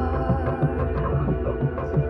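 Music: a low, steady drone under repeating pulsing low notes.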